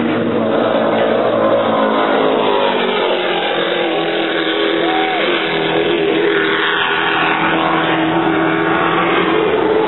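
Offshore racing powerboats running at full speed, a loud steady engine drone with several tones held level.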